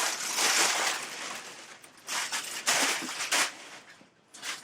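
Plastic air-pocket packing crinkling and rustling as it is handled and pulled from a box, in several loud bursts that fade to a brief quiet moment near the end.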